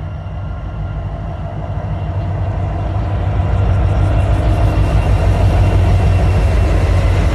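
Train approaching, growing steadily louder, with a low rumble of wind on the microphone underneath.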